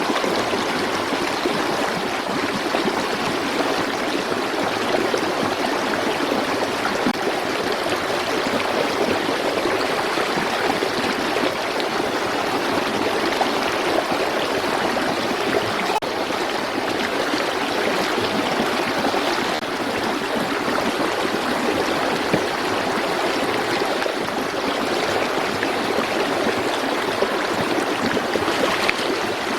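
Running water rushing steadily, like a stream.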